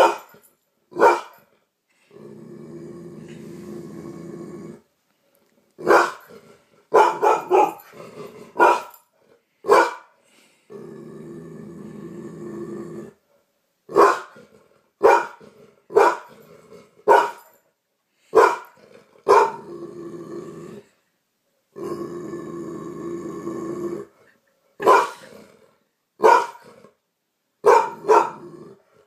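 Yellow Labrador retriever barking in short, sharp single barks, broken by three long, low growls of two to three seconds each, aimed at its own reflection in a mirror, which it takes for another dog.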